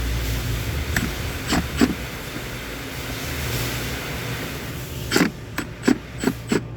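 Scattered metallic clicks and knocks from hand tools working on the heater box of a Ford F600 truck, a quicker run of them near the end, over a steady low rumble.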